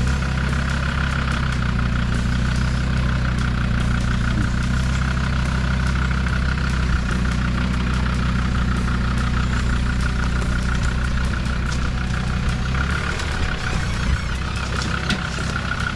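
Off-road 4x4 engine running steadily at low revs. Its note changes about thirteen seconds in, and a few sharp ticks come near the end.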